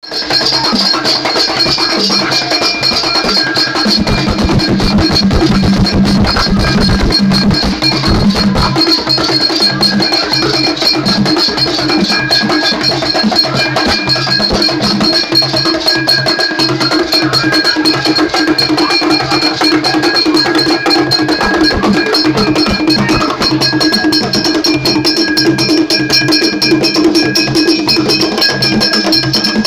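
Itsekiri traditional drum ensemble playing a fast, steady rhythm: barrel drums beaten with sticks and with bare hands, a beaded gourd shaker, and a bright ringing tone sustained over the top.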